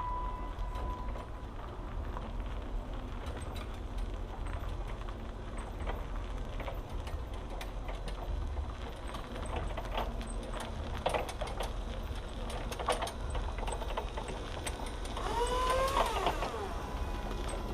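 Steady low rumble with scattered light clicks and ticks, and a brief pitched cry that bends up and down near the end.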